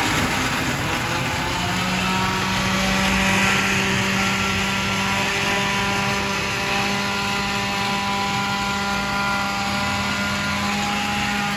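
A motor running steadily, a constant low hum with overtones that sets in about a second and a half in, over continuous background noise.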